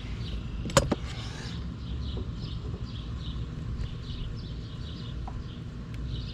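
Electric power tilt-and-trim motor and hydraulic pump of a Mercury 60 hp outboard running steadily as the freshly resealed unit is cycled to fill and bleed the ram, with one sharp click about a second in.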